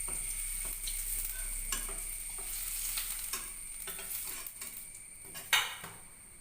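Boiled potato pieces sizzling in hot oil in an iron kadai while a spatula scrapes and clinks against the pan, lifting them out. One louder clink comes about five and a half seconds in, and the sizzle dies down near the end.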